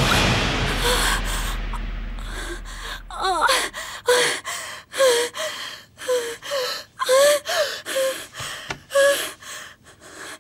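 A woman gasping and whimpering in distress, about a dozen short, sharp breath-cries, as in the throes of a nightmare. A loud dramatic music hit opens it and fades away over the first three seconds.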